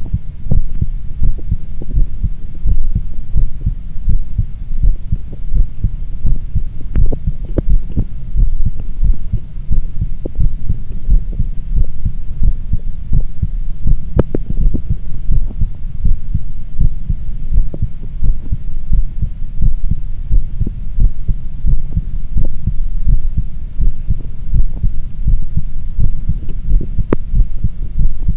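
Human heart sounds: a steady, repeating heartbeat with deep, low beats, and a few sharp clicks scattered through it.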